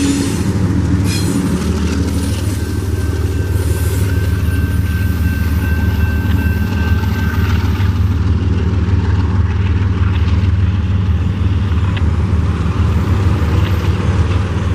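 Rear-end diesel locomotive and last cars of a loaded coal train rolling past over the crossing: a steady low rumble of engine and wheels on rail. A thin steady whine is heard for a few seconds early on, and the sharper sounds fade about halfway through while the low rumble goes on as the train moves away.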